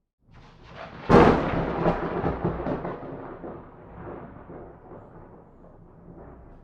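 A thunderclap: a short building rumble, then a sharp crack about a second in, rolling away into a long rumble that fades over the next several seconds.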